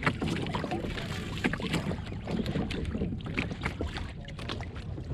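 Water sloshing against a kayak hull with wind on the microphone, and scattered knocks and clicks of gear being shifted around on board.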